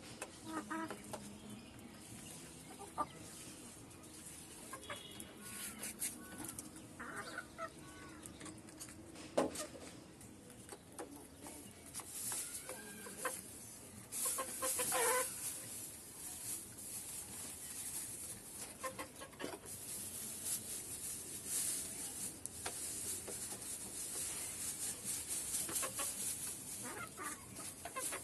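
Desi (country) chickens clucking, with short scattered calls throughout and stretches of high rustling or scratching noise in the second half.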